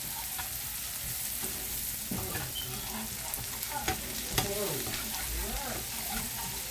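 Garlic butter sauce with scallion and carrot sizzling in a frying pan while a slotted metal spatula stirs and scrapes through it. A few sharp clicks of the spatula against the pan, the loudest about four seconds in.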